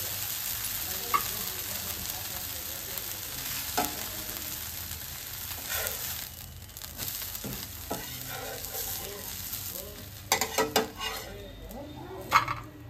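Dosa sizzling on a hot flat tawa, a steady hiss that slowly fades. Near the end a metal spatula scrapes and clicks against the pan as the dosa is folded and lifted off.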